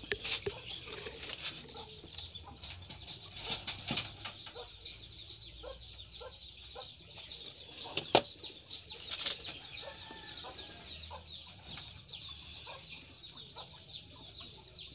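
Birds chirping in the background: a steady run of short, high chirps, several a second. A few faint clicks sound over it, the clearest about eight seconds in.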